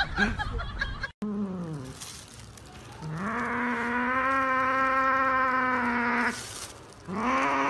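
A cat making long, low, drawn-out yowls: a short falling one, then one held steady for about three seconds, then another starting near the end.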